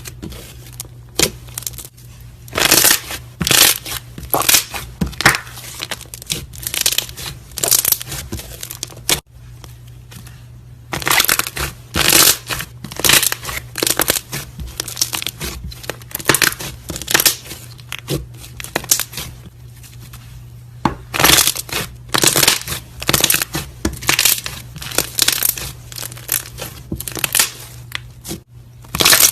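Slime being squeezed and kneaded by hand, its trapped air bubbles popping in quick runs of sharp crackling clicks, with a couple of quieter pauses between handfuls.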